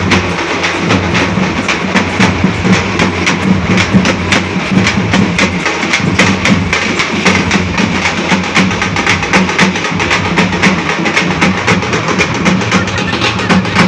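A group of dappu frame drums beaten with sticks in a fast, loud, continuous rhythm of sharp strokes.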